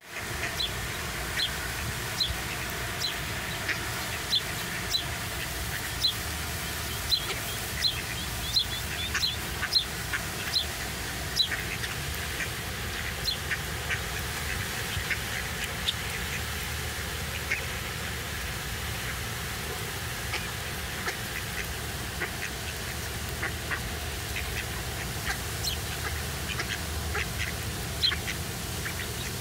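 Ducks and songbirds calling together: mallards and Egyptian geese quacking among great-tailed grackles and sparrows. Many short, sharp calls come thickest in the first ten seconds or so and thin out after, over a steady background hiss.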